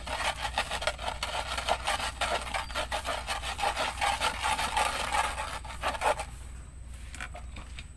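Pestle grinding and scraping round a wide earthenware mortar (cobek), working petis dressing into a paste with quick, gritty strokes. The grinding stops about six seconds in.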